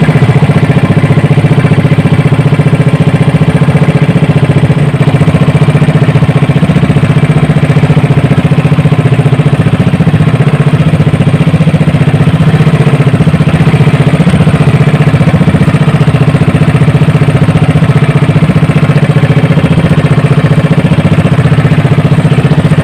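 Small engine of a motorized outrigger fishing boat running steadily at close range, a loud even rapid beat with no change in speed.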